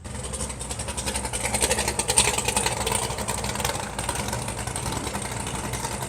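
Drag-race car engine idling loudly through open exhaust, with a rapid uneven crackle over a steady low rumble.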